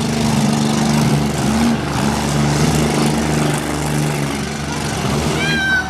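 Demolition derby cars' engines running and revving, a steady mechanical drone whose pitch shifts slightly. A short high sound that bends in pitch comes near the end.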